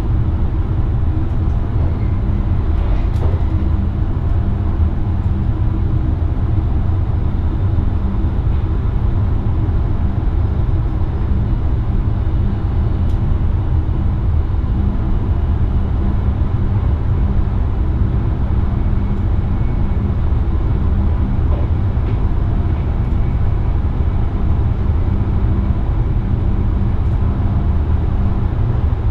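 VIRM double-deck electric train running at steady speed, heard from inside the driver's cab. A steady low rumble of wheels on rails, with a faint constant hum over it.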